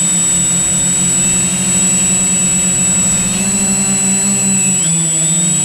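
Drone's motors and propellers buzzing, a loud steady hum with a constant high whine above it; the hum's pitch shifts about three seconds in and again near five seconds as the motors change speed.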